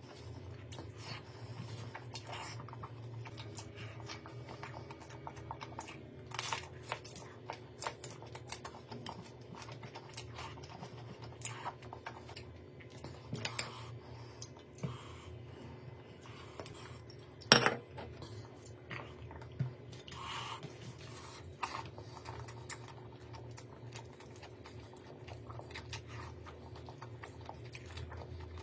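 Cooking and food handling with utensils: scattered light clinks, scrapes and crunches, with one sharper knock about two-thirds of the way through.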